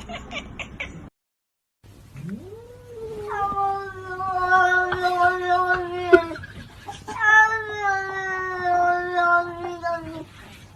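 A cat yowling: two long, drawn-out cries of about three to four seconds each. The first swoops up and then holds steady; the second sags slowly in pitch. A few short clicks come before them.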